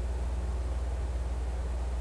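Steady low electrical hum with a constant hiss under it. The brush working resin on the mold is not distinctly heard.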